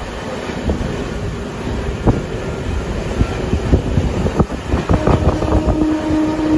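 A moving passenger train coach runs over the rails, with a steady rumble, occasional sharp wheel knocks at rail joints, and wind at the open window. About five seconds in, a steady train horn starts and holds.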